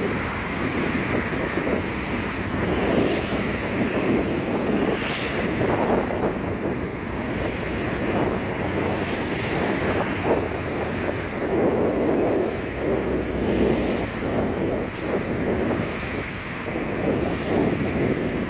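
Wind gusting on the microphone over a steady wash of sea waves, in uneven surges.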